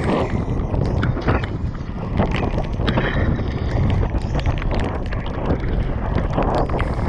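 Wind buffeting a helmet-mounted camera on a mountain bike descending a wet, muddy trail at speed, with tyres running through mud and the bike clattering over bumps in frequent short knocks.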